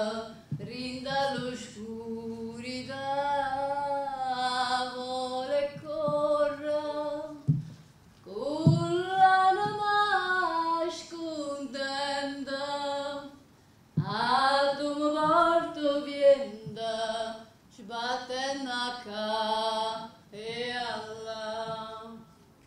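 A woman singing unaccompanied, in long phrases of held notes with short breaks between them.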